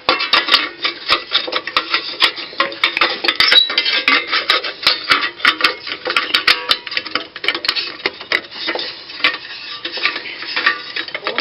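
Small metal tools and parts clinking and clattering against each other, many irregular light knocks, as they are handled and sorted through.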